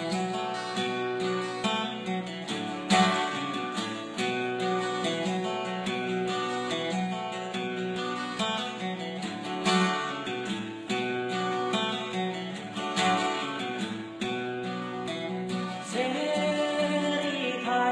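Music: acoustic guitar strumming a steady pattern, with a singing voice coming in near the end.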